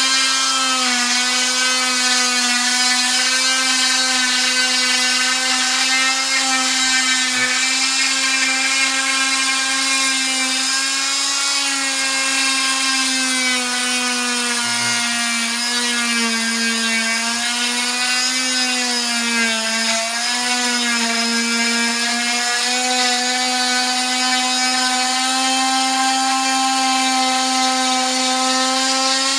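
Oscillating cast saw running steadily with a whine as its blade cuts through a leg cast; the pitch sags a little now and then as the blade bears down into the cast.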